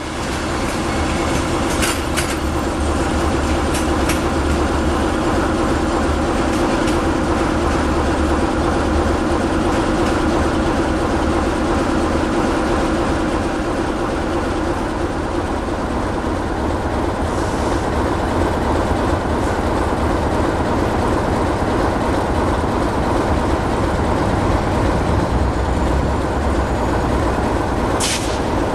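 Diesel locomotive running steadily at a station, a continuous deep engine hum with a low drone beneath it. A couple of sharp metallic knocks come through, one about two seconds in and one near the end.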